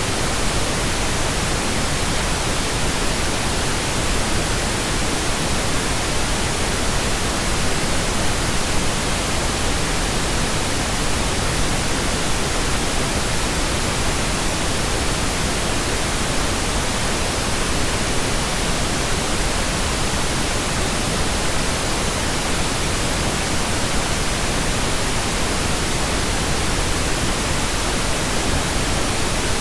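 Steady, unbroken pink noise generated in software: an even hiss across all pitches with no changes or events.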